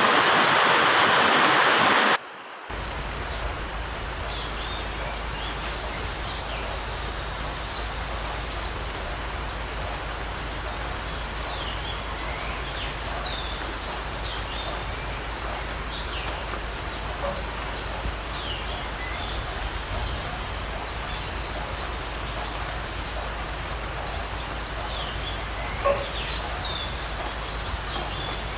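Steady rain hiss, louder for the first two seconds, then dropping suddenly to a softer, even patter. Birds chirp throughout, with a short trilled call every several seconds, over a faint low hum.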